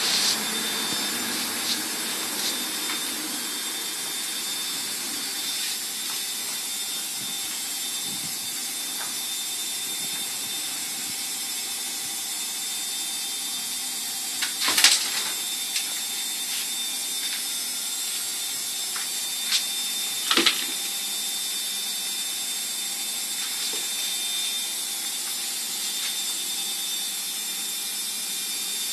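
A steady high-pitched whine over hiss, with a few sharp knocks: young dwarf rabbits moving about in a wooden hutch. The loudest knocks come as a cluster about halfway through and a pair some six seconds later.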